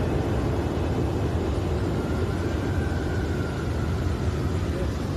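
Steady low rumble of running industrial machinery, with a faint high tone coming in about two seconds in.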